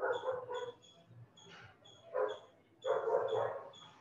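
A dog barking, several short barks spread across a few seconds.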